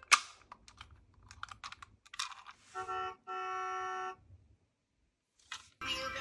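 Light clicking and clattering, then two steady electronic beeps on the same pitch: a short one, and a longer one of under a second.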